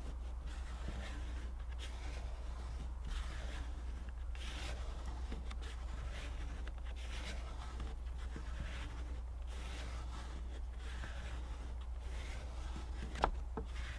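Plastic squeegee rubbing over the paper transfer tape of a vinyl decal on a car window, in repeated short up-and-down strokes about once a second. A single sharp click near the end.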